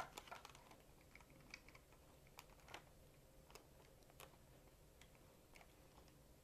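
Faint, irregular plastic clicks of small ballast plates being snapped into an RC blimp's gondola behind the balloon connector.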